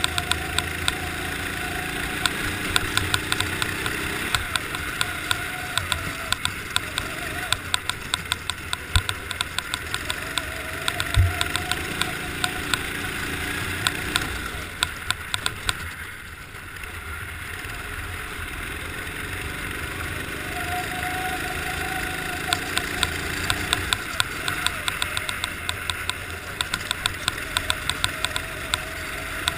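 Go-kart engine heard close up from on board, its revs climbing and falling again and again through the corners, dropping away briefly about halfway before picking up. A rapid clicking clatter runs alongside, with a couple of low thumps a little before the middle.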